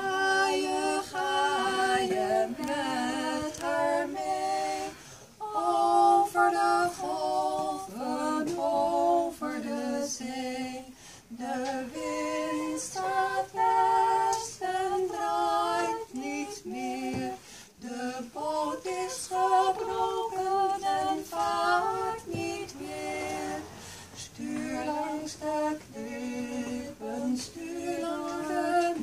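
Two women singing a song together, unaccompanied, in phrases of a few seconds with short breaks between them.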